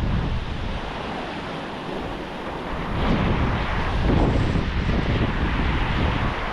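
Surf washing onto the beach with a brisk wind buffeting the microphone, a rumbling noise that swells and eases.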